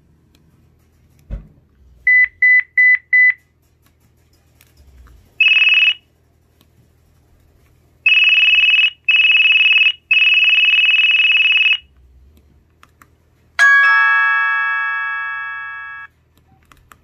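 An LG enV3 (VX9200) cell phone's speaker plays short electronic tones as ringtones are previewed: four quick beeps, then a tone of about a second, then a buzzy tone played three times in a row. Near the end comes a bell-like chime that rings out and fades over about two seconds.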